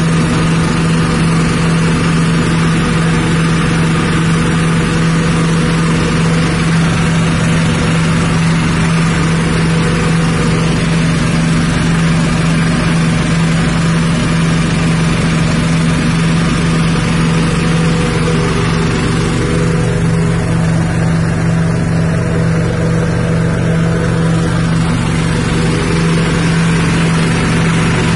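Rice-husk grinding mill driven by a 6.5 hp petrol engine, running steadily at constant speed with an even mechanical hum.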